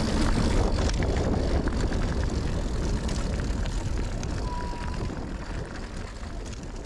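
Wind buffeting a helmet- or chest-mounted GoPro's microphone during a mountain bike descent, a heavy low rumble, with scattered light clicks and rattles from the bike and one short thin squeak about four and a half seconds in. The sound fades out gradually.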